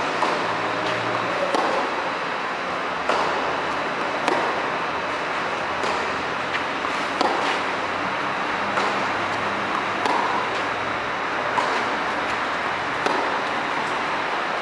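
Tennis rackets striking the ball back and forth in a baseline rally, a sharp hit about every second and a half, over a steady background hiss.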